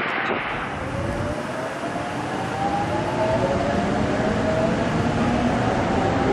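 Korail 7400-class diesel locomotive approaching on the line: a steady rumble with a faint whine that climbs slowly in pitch as it nears.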